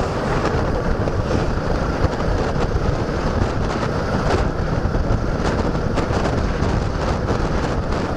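Wind buffeting the microphone over steady engine and road noise from a Suzuki Gixxer motorcycle being ridden.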